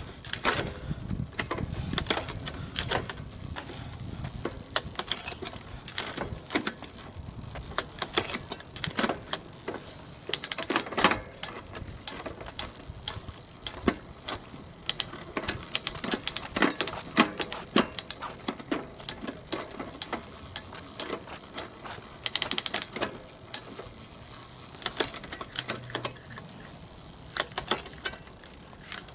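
Irregular clicking and rattling from a 1992 Schwinn Paramount's chain, derailleur and thumb shifter as the gears are shifted with the cranks turning. The chain is not going up onto the highest gear, which the mechanic suspects is a broken or gunked-up shifter.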